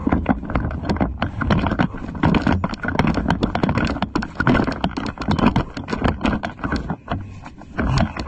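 A person running on dry dirt and through dead grass: quick, irregular footfalls with gear rattling and brushing.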